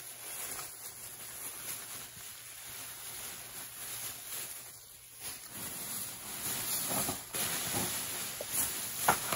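Rustling and crackling from handling decor items, getting louder about five and a half seconds in.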